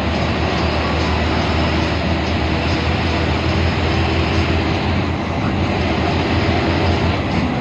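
Steady drone of an air-conditioned coach bus on the move, heard from inside the cabin: a low engine rumble mixed with road and tyre noise.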